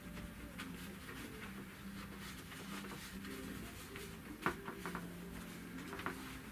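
Light clicks and fabric handling as upholstery buttons are pushed by hand into a crushed-velvet panel, the sharpest click about four and a half seconds in, over a steady low hum.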